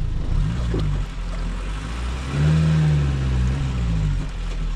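Safari vehicle's engine accelerating hard as it drives off at speed, its note rising and falling several times and loudest about halfway through.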